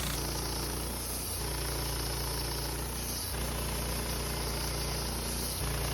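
Wood-Mizer LT15 sawmill engine running steadily. The sound breaks off and resumes abruptly three times.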